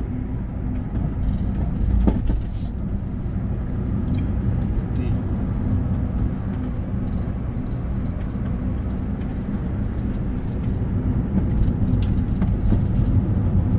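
Steady low rumble of engine and road noise inside a moving vehicle's cabin, with a few faint clicks.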